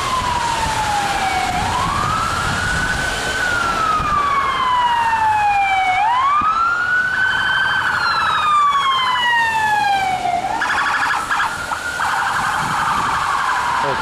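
Ambulance siren wailing in slow rising-and-falling sweeps, about three cycles, as it works through stalled traffic. A second, faster pulsing siren tone joins in the middle.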